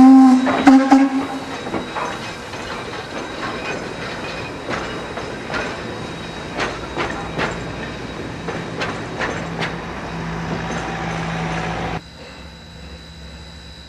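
A loud steam whistle blast from Nickel Plate Road 2-8-4 Berkshire No. 765 cuts off about a second in. Then passenger cars roll past, their wheels clicking irregularly over rail joints. About a second before the end the sound drops suddenly to a quieter steady low rumble.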